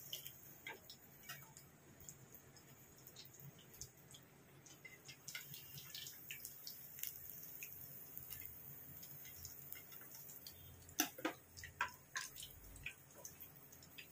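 Fish frying in a pan of hot oil: a faint sizzle with scattered crackles and pops. A few louder clicks come near the end, the metal spatula knocking against the pan as fried pieces are lifted out.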